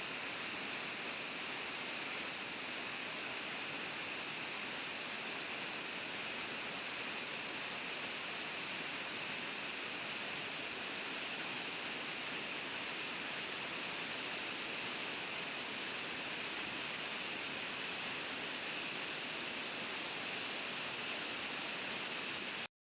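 An 18-metre waterfall's falling water making a steady, even rushing noise, which cuts off suddenly at the very end.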